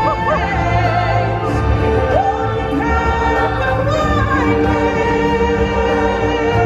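Music with a choir singing, voices holding long notes with vibrato over a steady accompaniment.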